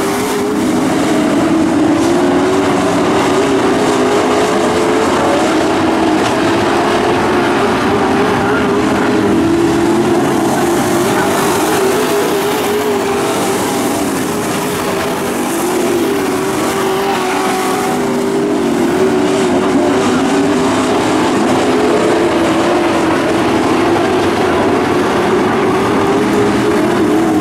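A field of dirt-track pro stock trucks racing around the oval, their engines running hard with a wavering pitch as they go through the turns.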